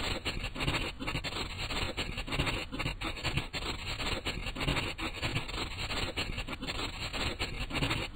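A marker scribbling on paper in quick back-and-forth strokes, a continuous scratchy rasp as an area is coloured in.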